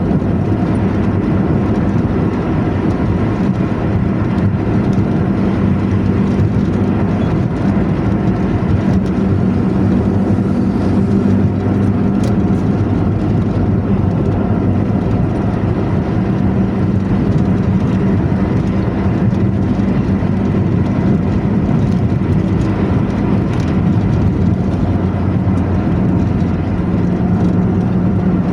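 Intercity bus engine and 'ngorok' (snoring) exhaust running at a steady cruise: a loud, low, even drone that shifts slightly in pitch near the end.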